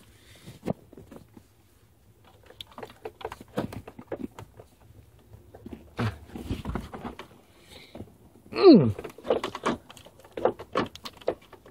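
Irregular clicks, knocks and rattles of hands working an old Jeep Cherokee XJ's hood release and latch, which are stiff and rusty and won't let the hood open. A short squeak falling in pitch comes about eight and a half seconds in.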